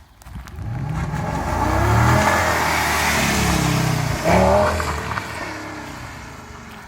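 Audi S8's 5.2-litre V10 accelerating hard, engine pitch climbing, with a gear change about four seconds in; the sound then fades as the car pulls away.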